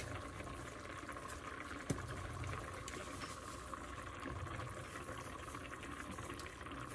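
Stew simmering in an enameled cast-iron Dutch oven, a steady faint bubbling, with a light tick about two seconds in.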